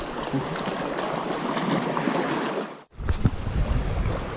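Small sea waves washing over shore rocks, with wind rumbling on the microphone. The sound cuts out for an instant about three seconds in, and the wind rumble is stronger after that.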